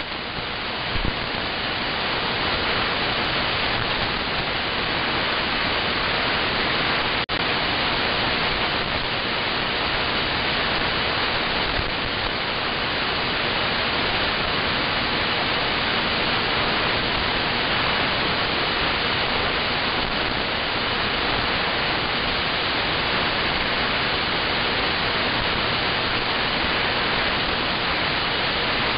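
Shortwave receiver static from a KiwiSDR web receiver in AM mode on the 40-metre band: a steady hiss of band noise with faint steady tones in it and one brief click about seven seconds in. It is the sound of an empty frequency where no station answers the CQ call, because propagation is poor.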